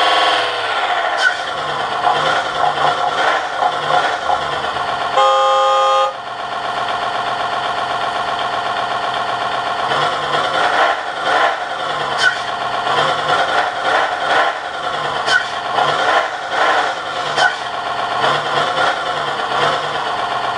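Electronic RC engine-sound module imitating a URAL 375D's V8 petrol truck engine, played through a small speaker. The revs fall away at the start, then repeatedly blip up and settle back. A horn sounds once for about a second, about five seconds in, and a few short sharp clicks come later.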